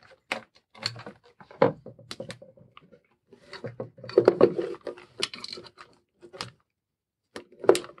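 A plastic electric air pump and its corrugated plastic hose being handled and pushed into a plywood housing: scattered clicks, knocks and rubbing, busiest in the middle. The pump is not running.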